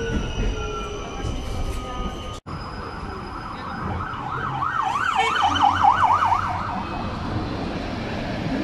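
Electric tram's traction drive whining from inside the car, several tones slowly falling in pitch as it slows. After a cut, a siren sounds for about two seconds in a fast up-and-down warble over street and tram noise.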